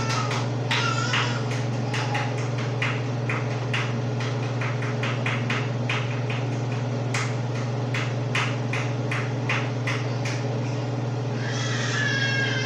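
A run of sharp clicks and knocks, irregular but often about two a second, over a steady low hum. Near the end a cat meows once, its pitch falling.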